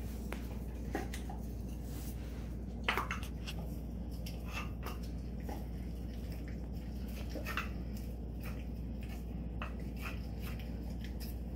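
Alaskan Malamute chewing and gnawing raw beef ribs on a tile floor: irregular wet smacks and clicks of teeth on meat and bone, the sharpest about three seconds in, over a steady low hum.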